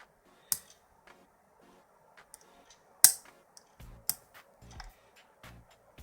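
Pins clicking in a Capsos 2.0 challenge lock's pin-tumbler cylinder as a pick works them under light tension: sharp clicks about half a second in, a louder one about three seconds in and another a second later, with soft low knocks between. The picker calls it a weak sounding click noise, a bad sign: he suspects an overset pin.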